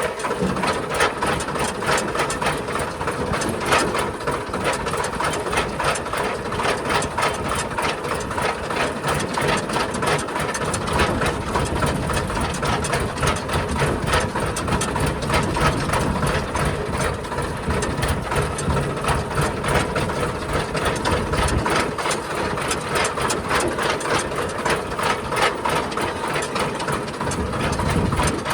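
Heavy diesel engine of earth-moving machinery running steadily with a fast, even chugging pulse; the low rumble swells briefly twice toward the end.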